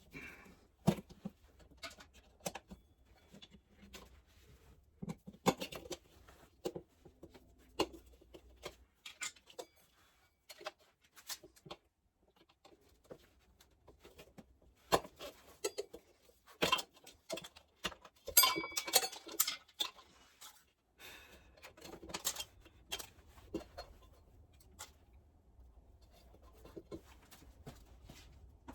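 Irregular clicks, knocks and scrapes of hand work with tools on a motorcycle wheel and tyre, with a denser metallic clatter and brief ringing about eighteen seconds in.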